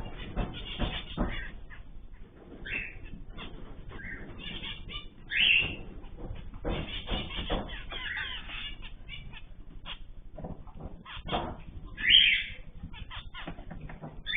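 Cage birds chirping in short calls, with wing flutters and many clicks and scratchy noises among them; the loudest call comes near the end.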